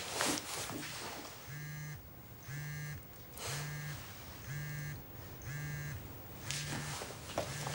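A mobile phone ringing: about six short electronic rings a second apart, each with a low buzz under it, starting about a second and a half in.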